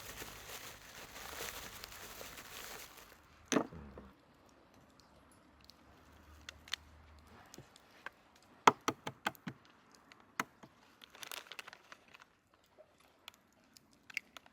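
Rustling and crinkling of something being handled, then a single sharp knock about three and a half seconds in, followed by scattered light clicks and taps.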